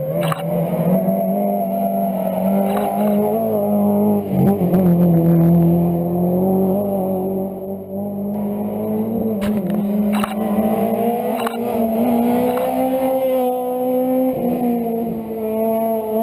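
Rally car engine under hard acceleration, its revs climbing and dropping several times as the driver shifts gears and lifts off for corners. A few sharp cracks cut through the engine sound.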